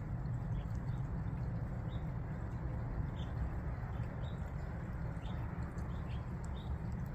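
Lesser goldfinches feeding at a seed tray: faint, irregular short high ticks over a steady low outdoor rumble.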